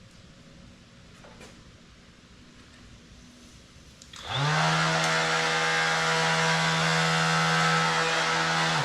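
DEWALT DCW210B 20V cordless orbital sander switched on about four seconds in. It spins up quickly, runs at a steady pitch for about four and a half seconds, then shuts off. It is still working after being dropped onto concrete.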